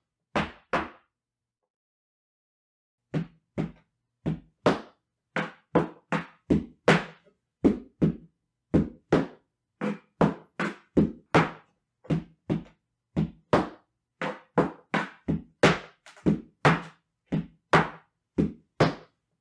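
Folklórico zapateado: heeled dance boots striking a wooden platform in a steady series of sharp knocks, about two to three a second. The knocks stop for about two seconds near the start.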